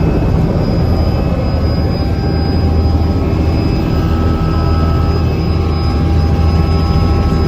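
Helicopter running steadily: a loud low rotor drone with a steady high turbine whine over it.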